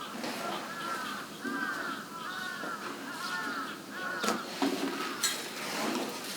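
A crow cawing over and over, a string of about eight arched calls roughly half a second apart, with a few sudden noisy hits a little past the middle.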